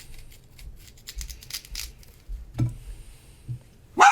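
Close-up crunching and chewing of crisp Korean pear, irregular crackly bites. A dog's bark starts right at the very end.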